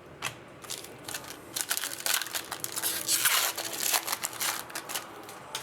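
Crinkling and crumpling of a hockey card pack wrapper handled by hand. Sharp crackles build up in the middle and die away near the end.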